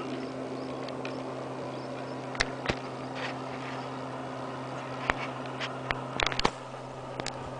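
Scattered sharp clicks and knocks from a spinning reel and rod being worked and feet shifting on a boat deck while a hooked bass is fought, over a steady low hum. The clicks are loudest and most frequent in a cluster a little past the middle.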